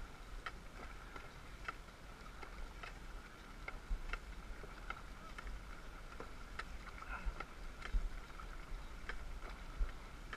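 Dragon boat paddles catching and pulling through the water in a quick, steady rhythm of short splashing strokes, somewhat under two a second, a few of them louder, over low wind rumble on the microphone.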